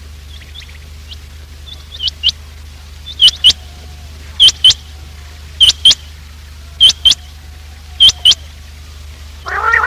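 Quail call used as a hunting lure: short, sharp, high notes in pairs, each pair repeated about every 1.2 seconds. Near the end a short, lower pitched call with several overtones rises in loudness.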